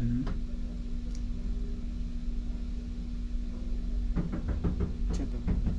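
Steady low machinery hum with a constant droning tone, with a brief quiet voice heard near the end.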